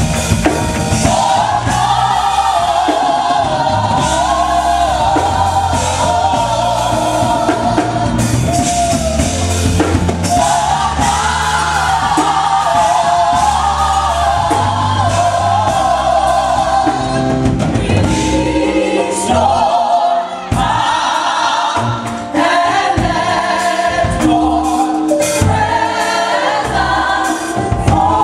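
Gospel music: a choir singing over bass and a drum beat.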